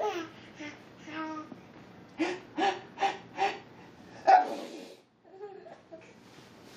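A run of four short laughs, then a loud fake sneeze about four seconds in, a sharp burst trailing into a breathy hiss.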